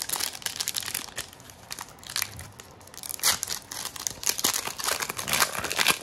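Foil booster-pack wrapper crinkling and rustling as it is handled, in irregular crackly bursts that grow busier in the second half.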